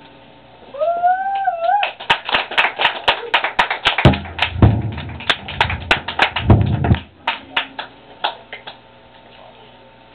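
Experimental harsh-noise sound collage: a short wavering tone about a second in, then a dense, irregular run of sharp clicks and clap-like hits with a few low thuds, stopping abruptly about seven seconds in.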